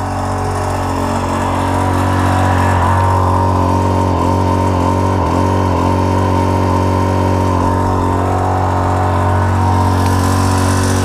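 Rainman watermaker's motor and high-pressure pump running steadily with a constant hum, forcing brackish water through the reverse-osmosis membranes while it is producing fresh water.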